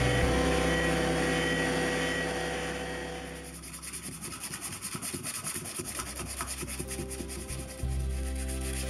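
A steady hum fades away over the first three seconds or so. Then comes the scratch of sandpaper rubbed by hand over a pear-wood candle holder, in quick rhythmic back-and-forth strokes.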